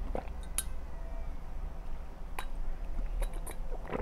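Drinking water from a glass, with a few light clinks of the glass about half a second, two and a half and three and a half seconds in, over a low rumble of clothing rubbing against the microphone.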